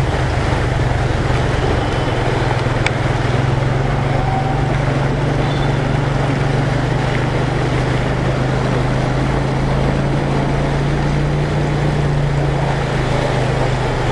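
Small motorcycle engine running steadily while riding through floodwater, with the hiss and splash of water sprayed up by the front wheel.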